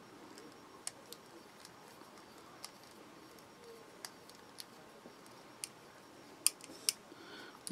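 Scattered faint clicks and small taps from handling a folding knife and a small screwdriver while fitting its screws, about ten in all, the sharpest near the end.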